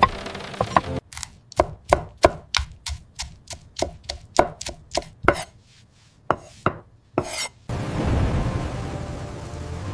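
Knife chopping on a cutting board: a run of sharp, even strokes about three a second, with a short pause a little after halfway. Rain is heard at the start and comes back near the end.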